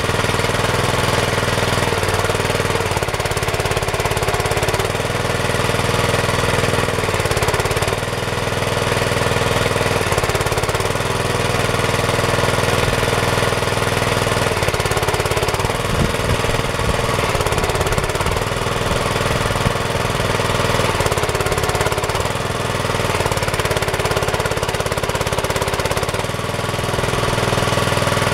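Small engine of a homemade mini tractor running steadily, with brief changes in its note every few seconds.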